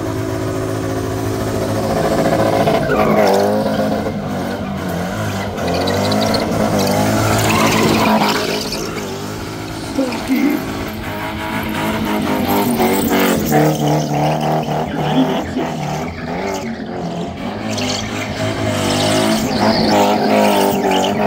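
BMW E30 spinning: its engine is held at high revs, rising and falling in pitch over and over, over the steady hiss of the rear tyres spinning against the pavement.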